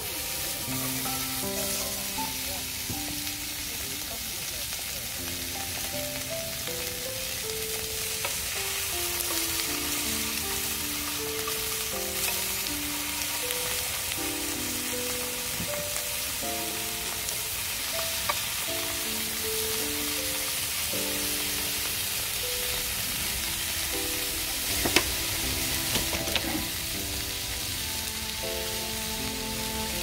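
Slices of pork belly sizzling in a frying pan on a portable butane gas stove, a steady frying hiss. Soft background music plays a simple melody of held notes, and there are a few sharp clicks late on.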